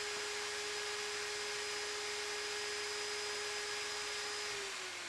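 A machine's motor whining at one steady pitch over a hiss. Near the end it starts to wind down, the pitch falling and the sound fading.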